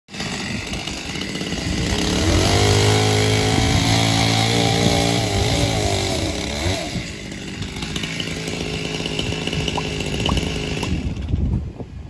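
Two-stroke chainsaw cutting through old barn timber. The engine runs at full revs under load from about two seconds in, drops back near seven seconds into quieter, steadier running, and stops shortly before the end.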